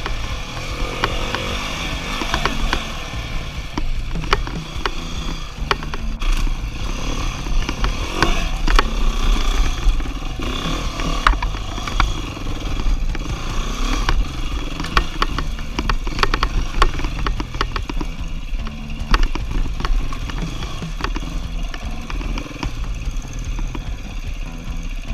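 Beta four-stroke enduro dirt bike's engine running on and off the throttle, its revs rising and falling, with frequent sharp knocks and clatter from the bike working over rough trail.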